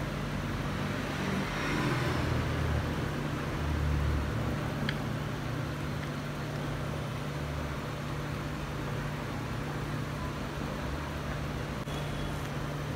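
A steady low mechanical hum, like a fan or motor running, with soft handling sounds of chopped salad vegetables being mixed by hand in a plastic box.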